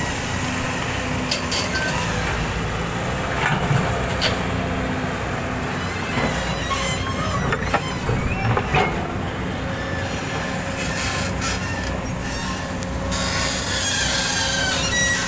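JCB crawler excavator's diesel engine and hydraulics running steadily under load as the bucket digs into and scrapes through gravel. Sharp knocks and scrapes of stones against the steel bucket cluster in the middle, and thin high squeals come near the end.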